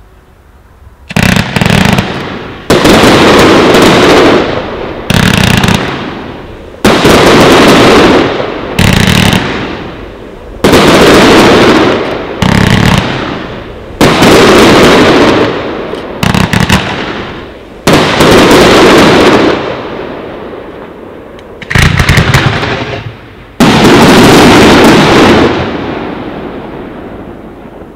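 Fireworks display: a string of loud aerial firework bursts, about a dozen bangs one to two seconds apart beginning about a second in, each fading out over a second or two.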